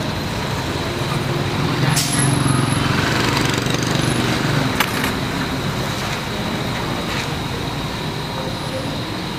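Hot oil sizzling steadily in a wok as beef balls deep-fry, over street traffic noise. A low vehicle engine hum runs through the first half, and there are a couple of sharp clicks.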